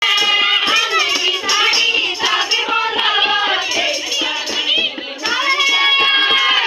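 A group of women and children singing a folk song together over regular hand-drum beats and clapping; near the end the singers hold one long note.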